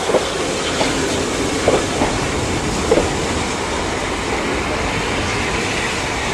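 Green passenger coaches rolling past. Their wheels give a few clacks over rail joints in the first three seconds, over a steady rumble of the running gear.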